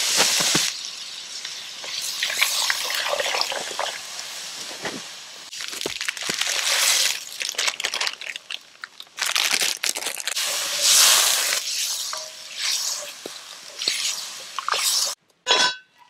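Stew sizzling and steam hissing in a cast-iron Dutch oven over a campfire, rising and falling in several swells, with scattered clicks and scrapes from the pot and utensils.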